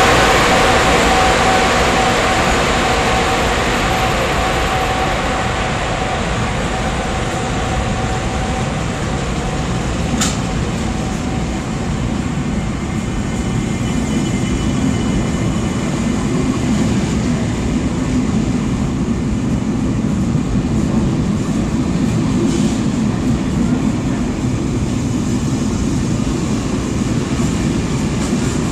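SNCB Class 20 electric locomotive pulling away, its steady whine fading over the first several seconds, then a train of Corail coaches rolling past with a steady rumble of wheels on rails that grows a little as the train gathers speed. Two sharp clicks come through, about ten seconds in and again near the end.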